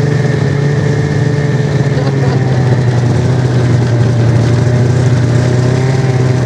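Snowmobile engine running steadily, with a strong low hum whose pitch drifts only slightly.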